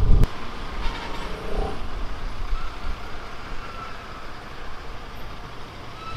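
Road traffic: vehicle engines running, with a loud low rumble at the very start that drops away to a steady noisy background.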